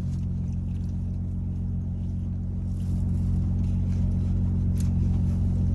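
Steady low hum of an idling car engine, with no other events.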